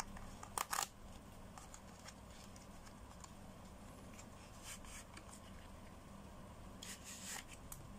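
Faint handling of a small cardboard box being opened by hand: the end flap is pulled open and the inner tray slid out. There are a couple of sharp clicks about half a second in, light ticks around the middle, and a rustle near the end.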